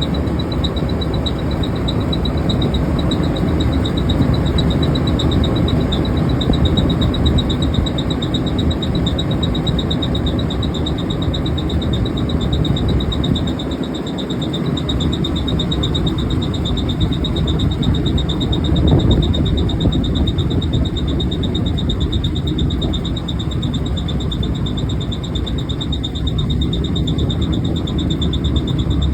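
Belt-driven exhaust fan running with a steady rush of air and motor noise, over which a thin, high-pitched chirping squeal pulses rapidly and without a break: the sound of its bad bearings.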